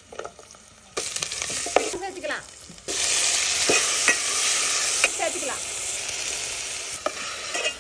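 Chopped tomatoes and dried chillies frying in hot oil in an aluminium pot, the sizzle starting about a second in and turning loud and steady from about three seconds on. A steel ladle stirs through it, with short scrapes and clicks against the pot.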